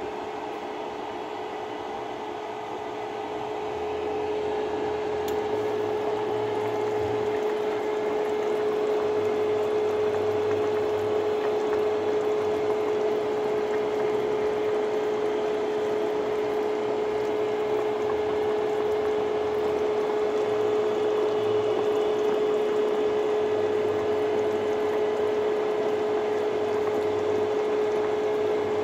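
Pot of fish soup with sliced onions at a boil, bubbling steadily, a little louder from about four seconds in. A constant steady hum runs underneath.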